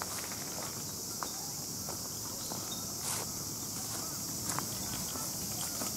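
Steady high-pitched drone of summer insects, with footsteps on grass and a few scattered clicks.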